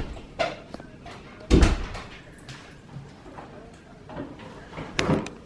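Three dull thumps or knocks, the loudest about a second and a half in and another near the end, over quiet room sound.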